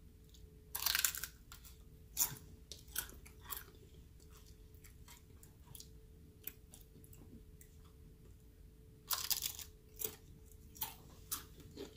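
A person biting and chewing a crisp Paqui One Chip Challenge tortilla chip: two loud bursts of crunching, about a second in and again about nine seconds in, each followed by a few quieter crunches as it is chewed.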